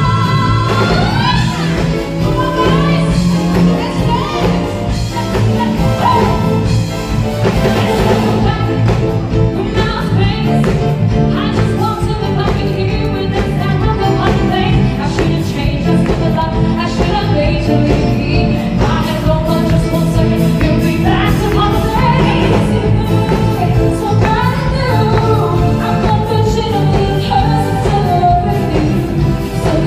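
Live pop music: female singers with a band of keyboards, guitar and drums, recorded from the audience in a concert hall.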